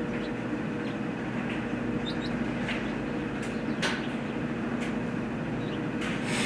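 Steady hum of a 5.3-litre V8 idling, with a few light clicks and taps scattered through.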